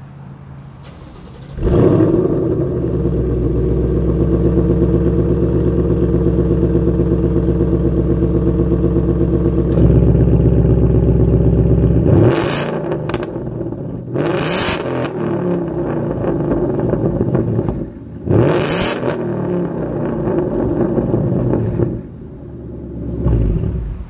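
Ford Mustang's exhaust: the engine comes up sharply to a loud, steady fast idle about two seconds in, then is revved in three short blips in the second half, each rise and fall of pitch clear at the tailpipes, before it settles back to idle.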